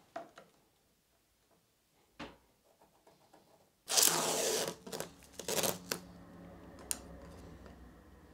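Blue masking tape being pulled off its roll: a loud ripping pull about four seconds in, followed by two shorter pulls. A few light clicks come before it.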